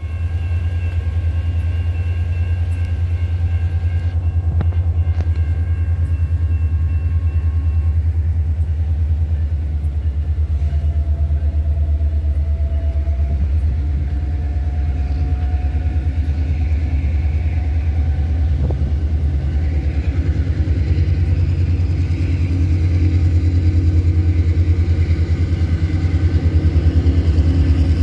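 A steady, low engine rumble, growing a little louder in the second half.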